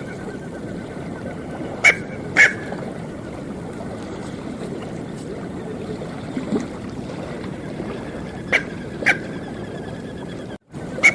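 Smew calling: two pairs of short, sharp calls, the notes of each pair about half a second apart, over a steady background hiss.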